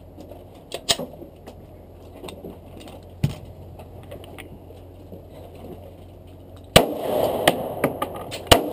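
Handgun shots at a shooting range: single sharp cracks spread out, about a second in and again around three seconds, then louder shots near the end in quicker succession.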